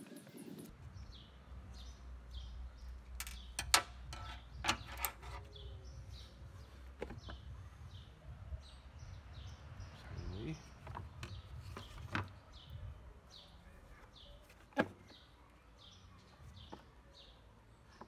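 Scattered light clicks and knocks of hard plastic parts and a screwdriver as a vacuum cleaner's casing is opened and its motor lifted out, the sharpest knock a few seconds in. Over a low steady hum, a bird gives a short high chirp about twice a second.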